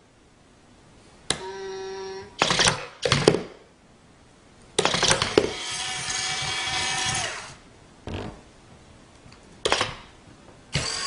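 A small motorized machine running in several short bursts and one longer run of about three seconds, whirring and clattering.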